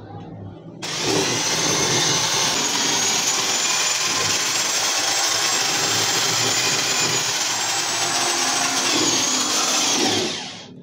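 Corded electric drill with a paddle mixer running at a steady speed, stirring distemper paint in a bucket. It starts suddenly about a second in and stops near the end.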